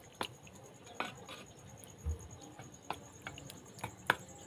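Scattered sharp clicks and light knocks of dishes and utensils, irregular and growing louder near the end.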